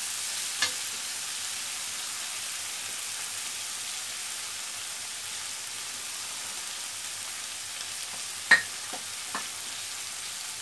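Shrimp, onion and spice masala sizzling steadily in an oiled wok as it is fried down, with a metal spatula stirring at the start. A few sharp clicks break in, the loudest about eight seconds in, followed by two lighter ones.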